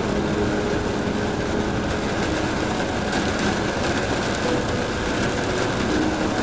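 Steady vehicle engine and road rumble.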